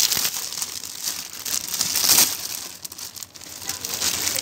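Clear plastic packaging bag crinkling as it is handled and pulled open, loudest about two seconds in.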